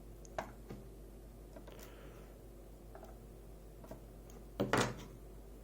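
Small metal clicks from a pin-tumbler lock and tools being handled during disassembly: one sharp click about half a second in, a few faint ticks, and a short rattle of clicks near the end.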